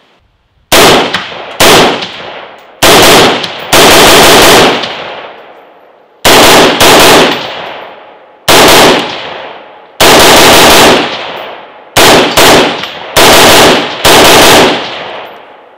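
AR-15-style rifle fired semi-automatically: a string of very loud shots in groups, single shots, quick pairs and rapid runs, each ringing out with a long echo.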